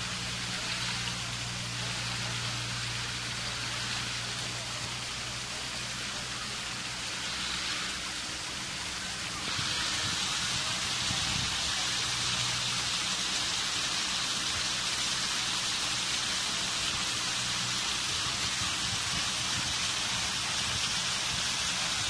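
Water of a stone waterfall fountain pouring over rocks and splashing into a shallow pool, a steady rushing splash that gets louder and brighter about nine and a half seconds in.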